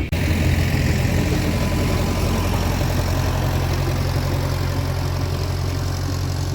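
An engine running steadily with a low, even hum, starting abruptly just after the start.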